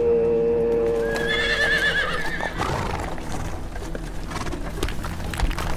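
A horse whinnies about a second in: one high, wavering neigh lasting about a second. It is followed by breathing and shuffling noise with a few knocks. A held musical drone is heard under the start and ends about two seconds in.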